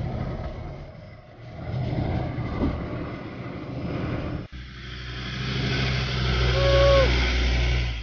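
Off-road 4x4 engine running slowly over a rocky trail, its sound rising and falling. About halfway through it cuts suddenly to a steadier, louder engine hum, with a short higher tone near the end.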